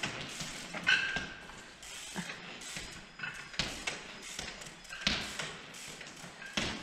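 Trials bike hopped up concrete steps: a series of sharp knocks as the wheels land on step after step, with lighter mechanical clicking between the landings.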